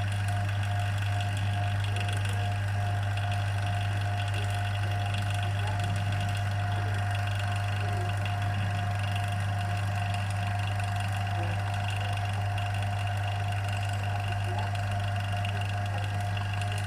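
Electric vacuum pump running with a steady low hum, pumping down the pressure over water so that it boils.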